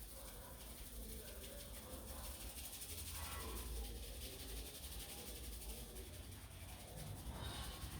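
Fingers rubbing through hair and over the scalp in a head massage, a soft, steady rustling hiss.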